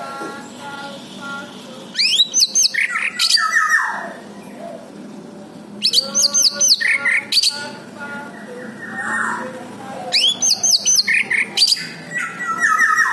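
Orange-headed thrush singing in three loud bursts of rapid, sweeping whistled phrases, with quieter chirps between them.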